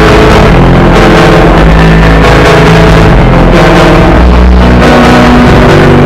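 Mock emergency-alert alarm track: very loud, heavily distorted music of held notes whose pitches change every second or so.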